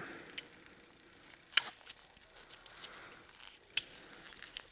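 A few sharp clicks and light knocks from a ridge reamer being handled and its parts adjusted by hand, with faint ticks between them.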